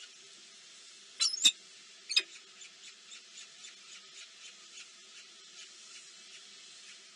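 Small birds chirping: a steady run of faint short high chirps, about three or four a second, with a loud sharp squeaky call about a second in and another about two seconds in.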